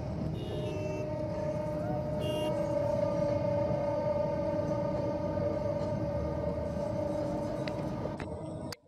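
Train horn sounding one long, steady note over the rumble of a passing train. The sound cuts off abruptly at the very end.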